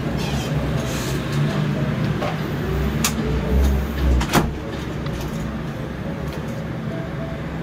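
A room door being closed and its knob latch or lock clicking: two sharp clicks about a second apart, a little past the middle, over a steady low rumble.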